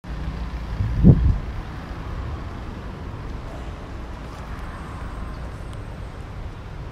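Steady low vehicle rumble, with a single loud, dull thump about a second in.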